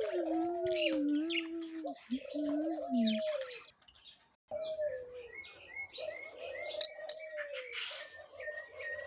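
Doves cooing in long, wavering calls, at times two together, with small birds chirping over them and two loud, sharp chirps about seven seconds in.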